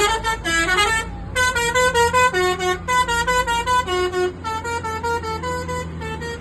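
Bus telolet horn playing a quick tune of short notes that step up and down in pitch, over the steady low hum of the bus's idling engine.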